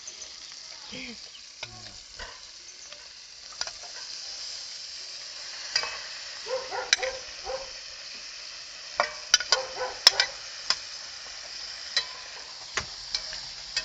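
Onions added to hot oil with browned garlic and rooster pieces, sizzling steadily in a pot over a wood fire, the sizzle growing a little louder about four seconds in. A spoon stirs and clinks against the pot, most often around nine to ten seconds in.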